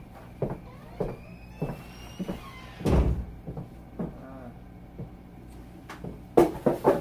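Irregular clicks and knocks of small tools and parts being handled on a hard workbench, with a louder knock about three seconds in and a quick run of knocks near the end. A steady low electrical hum runs underneath.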